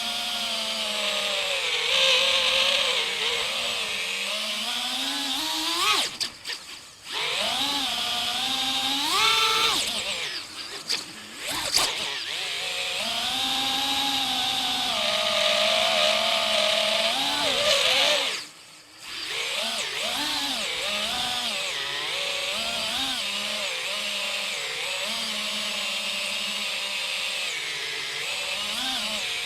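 Brushless motors of an Armattan Badger 5-inch FPV quad, heard on board, whining and rising and falling in pitch with throttle. The sound drops away briefly three times: a few seconds in, around the middle, and about two-thirds of the way through.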